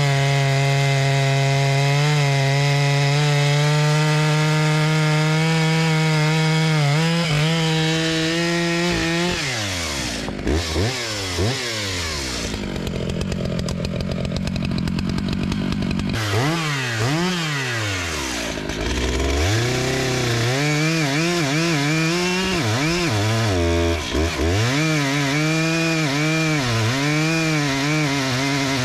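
New Stihl MS 881 Magnum, a 122 cc two-stroke chainsaw, cutting through a red oak log at full throttle during its break-in, holding a steady pitch under load. About ten seconds in its pitch drops and swings up and down several times, then it settles back into a cut with a wavering pitch.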